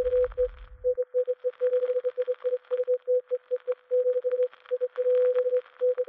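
Morse code: a single steady tone keyed on and off in quick dots and dashes, over crackling radio static. Background music fades out about a second in.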